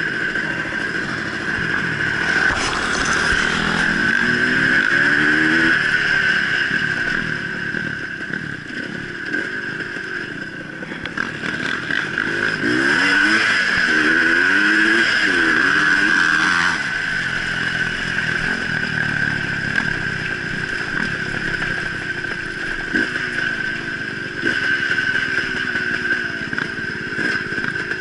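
Dirt bike engine running under way, its pitch rising and dropping in steps as the rider accelerates up through the gears and backs off, with two strong pulls: a few seconds in and again about halfway through.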